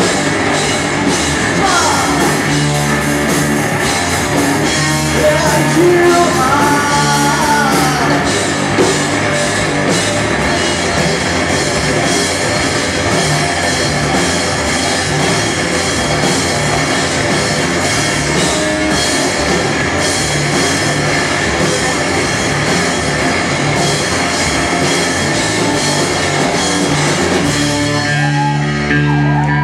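Rock band playing live at full volume with a drum kit, a voice singing over the first several seconds. The full-band sound drops away about two seconds before the end.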